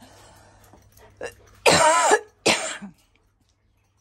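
A person coughing: a short cough a little over a second in, then two loud coughs about two and two and a half seconds in.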